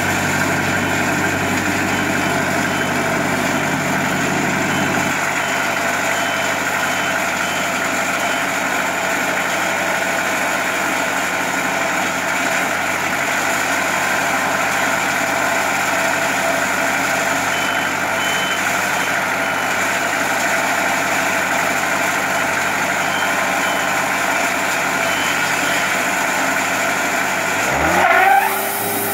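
Wood-Mizer portable sawmill with its Kubota diesel engine running steadily, a hum of several held tones; its low rumble drops away about five seconds in. Near the end a rising whine climbs and then holds at a steady pitch.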